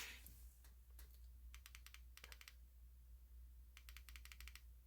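Two quick runs of faint small clicks from the buttons of a slim EDC flashlight being pressed several times in a row: multi-clicks that switch its modes.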